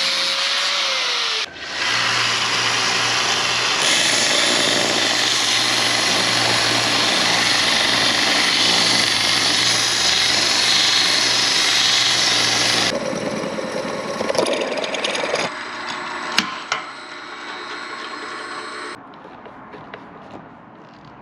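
Belt sander grinding a stainless steel strip: the abrasive belt on the metal and the sander's motor make a loud, steady hiss and hum for about eleven seconds. About two-thirds of the way through, the grinding stops and the motor winds down, followed by a few sharp metal clicks.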